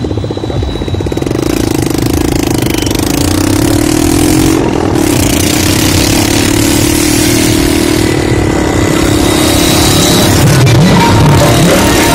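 Motorcycle engine running steadily while riding along, with loud wind rushing over the microphone; the engine pitch wavers a little near the end.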